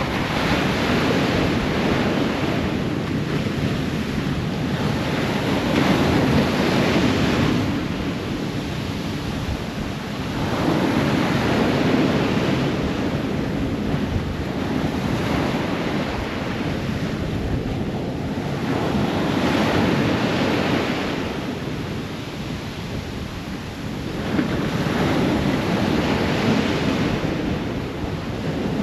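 Ocean waves breaking on a shore: five surges of surf, one every five to eight seconds, with a steady wash of foam between.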